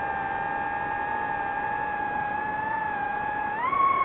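A drone's electric motors and propellers whining at a steady pitch. Near the end the whine rises sharply in pitch and gets louder as the motors speed up.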